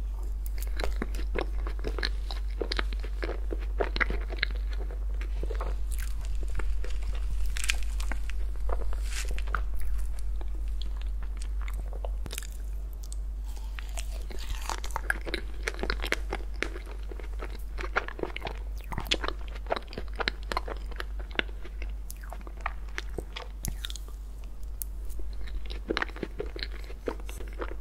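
Close-miked eating sounds of ice cream cake: bites taken from a fork and chewed, with many small sharp clicks and wet mouth smacks coming irregularly.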